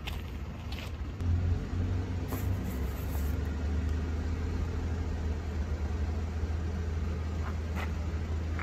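A vehicle engine running steadily: a low, even hum that sets in about a second in. A few light clicks come just before it.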